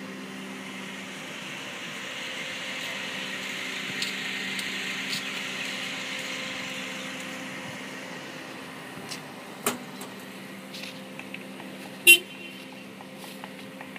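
A motor vehicle engine running with a steady hum, and one short horn toot about twelve seconds in, with a few sharp knocks around it.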